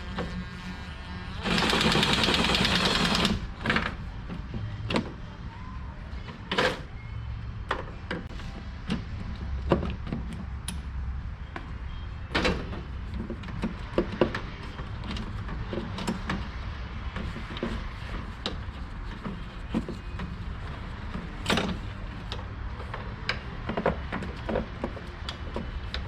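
A small power tool runs in one steady burst of about two seconds, driving out a 10 mm headlamp bolt. Scattered clicks and knocks of tools and plastic and metal parts being handled follow.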